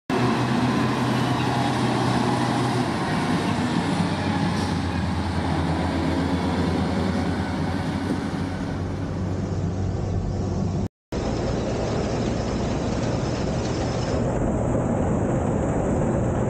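Case IH combine harvester running steadily: a low engine hum under the broad noise of the working machinery. The sound drops out for a moment about eleven seconds in, then carries on.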